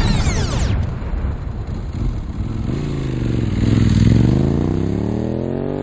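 Motorcycle engine running under a low rumble, its pitch dropping and then climbing steadily as the bike slows and accelerates again. A loud sweeping sound dies away in the first second.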